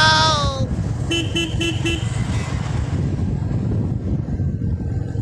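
Vehicle horns honking on the road: a long honk that cuts off about half a second in, then four quick short beeps, over the steady low rumble of motorcycle riding and wind.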